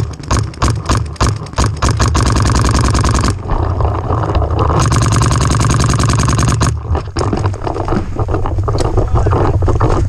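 Paintball markers firing rapid strings of shots at close range, a fast clatter of pops. Two long, very rapid unbroken strings come about two seconds in and again about five seconds in, with scattered shots around them.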